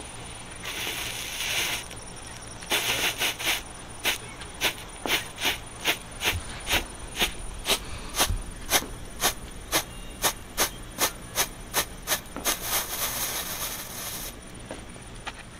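A "camera flash" strobe firework burning on the ground: a short hiss, then a steady run of sharp pops about two a second, quicker at the start, ending in a longer hiss.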